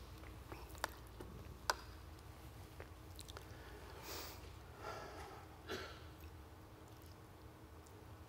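Quiet room tone with a steady low hum, broken by a few faint sharp clicks in the first two seconds and some soft, short rustles around the middle.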